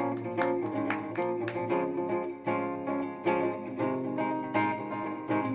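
Acoustic guitar fingerpicked in a steady, repeating pattern of plucked notes and chords, about three notes a second.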